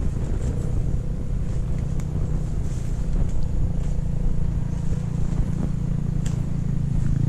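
A steady low rumble, with scattered faint clicks of footsteps and brushing through leaf litter and undergrowth.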